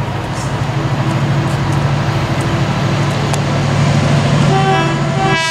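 Class 70 diesel freight locomotive approaching with its engine throbbing and growing louder, then sounding its horn about four and a half seconds in.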